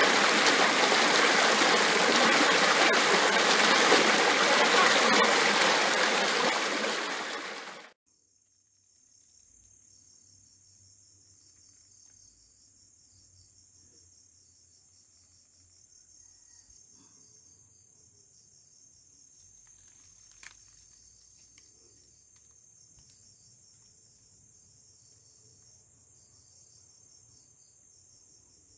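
A stream rushing over rocks, loud and even, stops abruptly at about eight seconds. After it come faint insects chirring: a continuous high buzz with a pulsing edge, with a single click about two-thirds of the way in.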